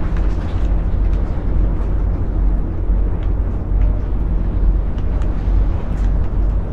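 Wind buffeting the microphone: a steady, loud low rumble with a few faint clicks over it.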